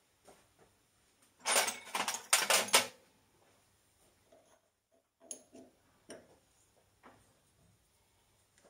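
Metal tools and steel bar stock being handled and knocked together: a burst of rattling clatter about a second and a half in, lasting about a second, then scattered light clicks and knocks.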